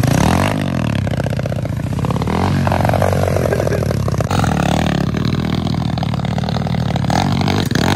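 Pit bike's single-cylinder four-stroke engine revving hard, its pitch rising and falling over and over.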